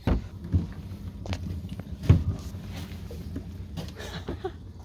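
Footsteps and knocks on a small fishing boat's deck as people move aboard, a handful of dull thumps with the loudest about two seconds in, over a low steady hum.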